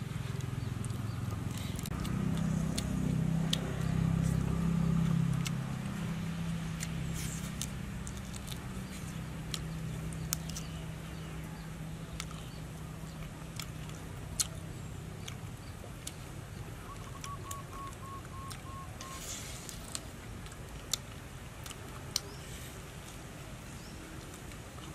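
Scattered clicks and smacks of cooked quail being handled and eaten by hand. A low hum swells over the first few seconds and then fades, and a short run of about six quick high peeps comes past the middle.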